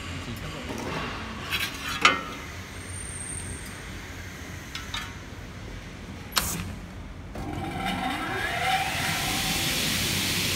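A few sharp knocks and clicks as the aluminium cutting saw is set up, then, about seven seconds in, the Atech Crater A 450's 2.2 kW motor starts and its 450 mm blade spins up with a rising whine and a growing hiss that settles into a steady run.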